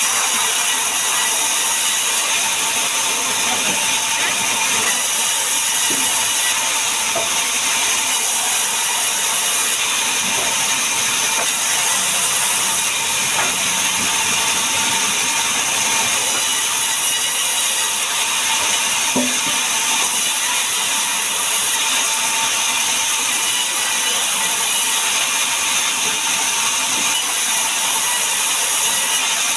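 Sawmill band saw running and ripping logs lengthwise into planks: a loud, steady sound with a few faint knocks from the logs and table.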